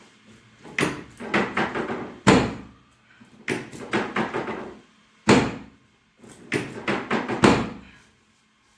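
Chiropractic percussion adjusting gun firing against the body in three short bursts of rapid thuds, with two single harder strikes between the bursts.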